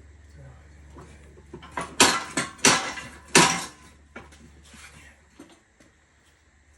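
Steel tools clanking against a tractor wheel rim on a manual tire changer: about four loud, sharp metal clanks with short ringing, a couple of seconds in, then a few faint knocks.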